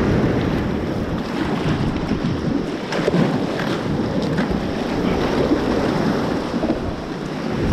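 Strong wind buffeting the microphone over the wash of surf at the shoreline, a steady rushing noise with no break.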